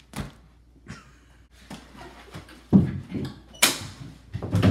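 Scattered knocks and thumps of people scrambling to hide in a small room, with a loud, sharp bang about three and a half seconds in.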